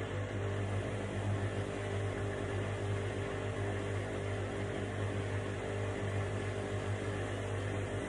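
Indesit front-loading washing machine running steadily: a constant low motor hum with a few steady higher tones over an even whirring noise.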